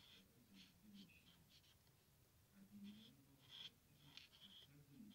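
Faint scratching of a felt-tip marker drawing short strokes on lined paper, several strokes in quick succession with brief gaps between them.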